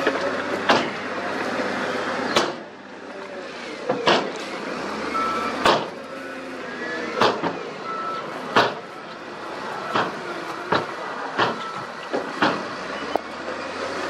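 Wheel loader's diesel engine running as it pushes and shifts freshly dumped rock, with sharp knocks and clanks of rock and steel about once a second and a couple of short beeps.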